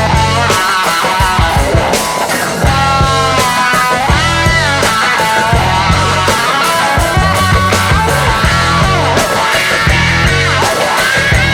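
Background pop-rock song with electric guitar, a steady bass beat and a sung melody.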